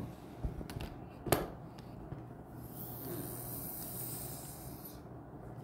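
Handling noise close to the microphone: a few light clicks and one sharp knock about a second in, then a soft breathy hiss lasting a couple of seconds.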